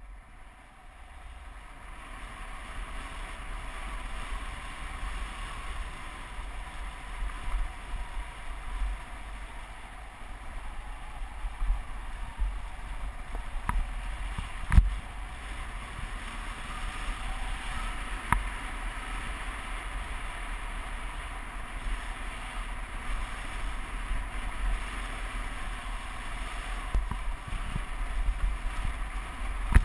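Motorcycle ridden along a gravel road, heard from a bike-mounted camera: wind rushing over the microphone with a low rumble from the bike and tyres. One sharp knock comes about halfway through, and the sound fades in over the first couple of seconds.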